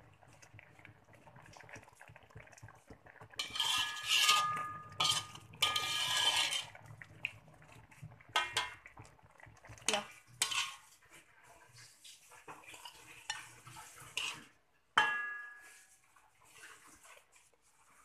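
Metal utensils scraping and clinking against a metal wok and a china plate while coconut curry is stirred and ladled out: two stretches of scraping, a few sharp clinks, and one loud ringing clink about fifteen seconds in.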